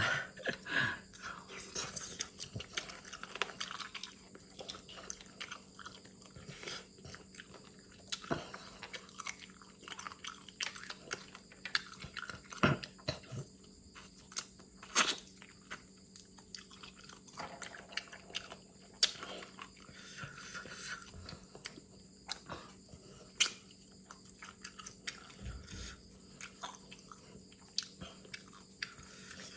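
Close-up chewing and biting on crab legs, with scattered sharp cracks of shell.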